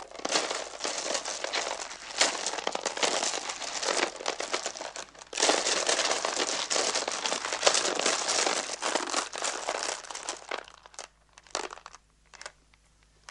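Crinkling and rustling of wrappings as sugared-almond wedding favours are handled. The crinkling is dense for about ten seconds, then thins to a few scattered crinkles near the end.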